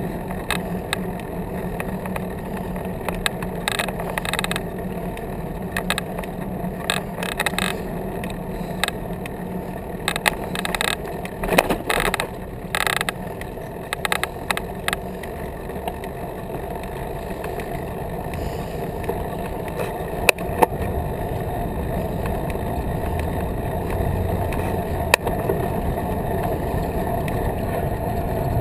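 Bicycle riding along a paved path, heard from a camera mounted on the bike: steady rolling and wind noise, with bursts of clicking and rattling from the bike in the first half and a few single sharp knocks later on.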